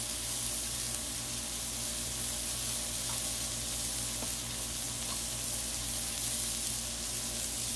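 Balls of ground beef for smash burgers sizzling on a hot Blackstone flat-top steel griddle, a steady even hiss with a few faint pops.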